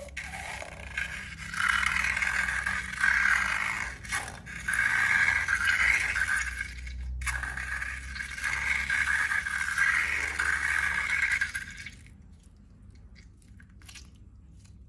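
Scraping in several long strokes that swell and fade, which stops abruptly about twelve seconds in, followed by a few faint ticks.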